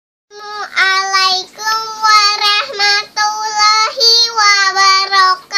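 A young girl singing, holding long steady notes in three phrases with short breaths between them.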